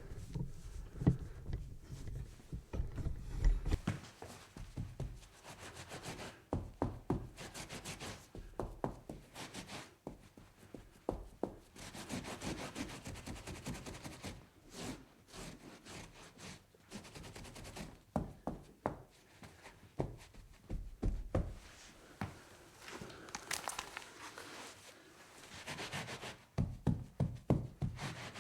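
Cloth wiping and scrubbing across a wooden tabletop, in irregular strokes of rubbing with frequent small knocks and thuds against the table.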